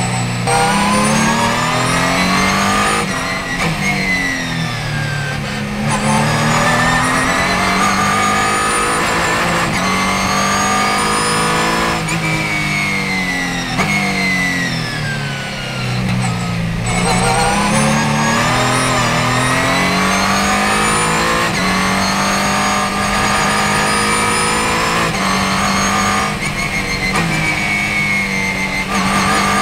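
Ligier JS2R race car's Ford 3.7-litre V6 heard from inside the cockpit, its pitch climbing hard under acceleration and then falling on the downshifts into corners, over and over. Music with a bass line plays underneath.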